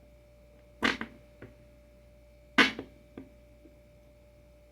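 Two sharp knocks about two seconds apart, each followed by a fainter knock: hard skateboard parts being knocked together or set down during assembly.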